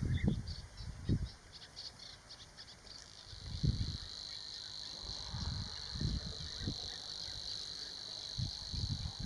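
Savi's warbler singing: a run of separate quick ticking notes that about three seconds in merge into a steady, high, even reel. Low thumps come and go underneath.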